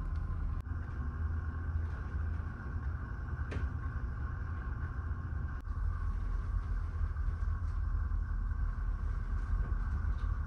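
Steady low drone of a large ferry's engines heard from inside a passenger cabin, with a steady higher hum over it and a few faint clicks.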